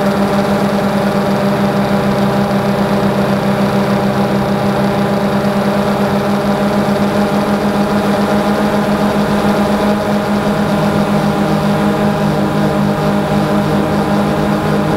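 DJI Phantom 2 quadcopter's four electric motors and propellers buzzing steadily in flight, picked up close by the camera mounted on the drone; the pitch shifts slightly about ten seconds in.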